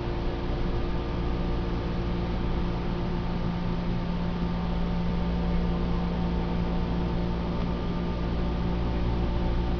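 Running noise inside a Seibu 2000-series electric train car (MoHa 2197, a motor car with a Mitsubishi GTO VVVF inverter): a steady rumble with a steady low hum. The hum comes in about a second in and fades near the end.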